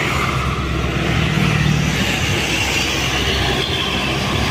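Heavy diesel bus passing close by, its engine running with a steady low hum over loud road and tyre noise.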